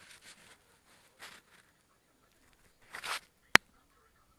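Handling noise from a handheld camera: three brief rustles as it is moved and shaken, then one sharp click a little past halfway through.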